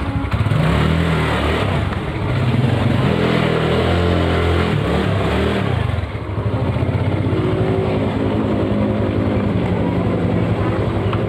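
Yamaha Mio Sporty scooter's single-cylinder four-stroke engine running as it rides off slowly. Its pitch rises and falls with the throttle for the first six seconds or so, then holds steadier and lower.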